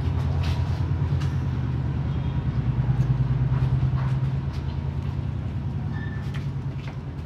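A loud low engine rumble, as of a heavy vehicle, swelling to a peak about three seconds in and then slowly fading. Faint wet chewing and slurping clicks from noodles being eaten sit over it.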